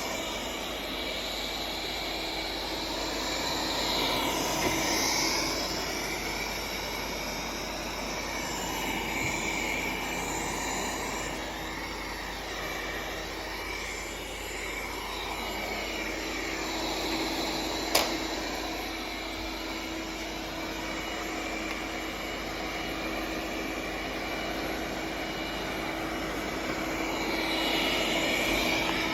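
Cecotec Conga 8290 robot vacuum cleaner running while it cleans: a steady whir of its suction motor and brushes, swelling a little twice, with one sharp knock near the middle.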